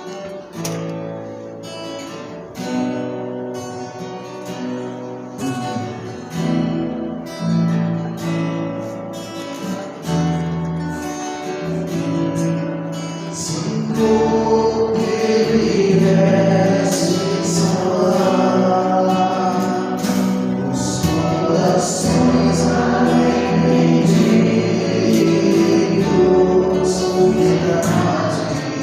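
Christian worship music: a guitar-led introduction that turns fuller and louder about halfway through, with singing.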